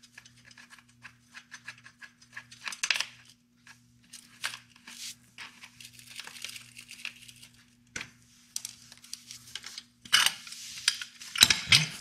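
A hex key works bolts out of a motorcycle floorboard bracket, with light metallic clicks and scrapes. Louder metal clattering comes about ten seconds in, as the floorboard and its bracket come loose and are lifted off.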